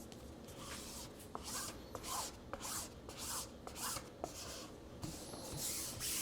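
Squeegee swept over a vinyl skin in repeated short rubbing strokes, about one or two a second, pressing the skin down onto the keyboard case from the center out to the edges.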